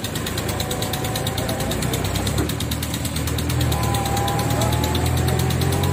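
Heavy diesel engine running with a fast, even knocking beat, getting louder about halfway in.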